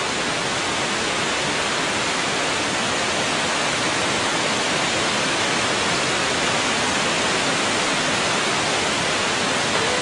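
Waterfall pouring into a pool: a steady, even rush of falling water.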